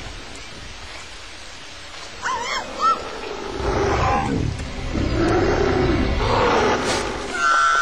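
Steady rain, then a few short squeaky chirps, then a large beast's deep growls rising and falling in pitch several times, louder than the rain, ending in a high held whine.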